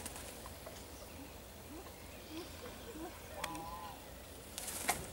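Outdoor ambience of faint, distant voices and chirps. A short wavering call sounds a little past the middle, and a brief rustle comes near the end.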